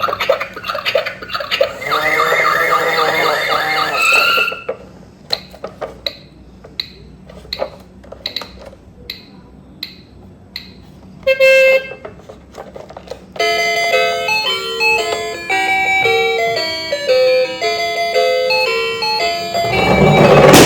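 Electronic toy sounds and music: a pitched rhythmic passage, then evenly spaced clicks, a short loud tone, and a tinny stepwise melody like a toy's sound chip, ending in a loud burst of noise.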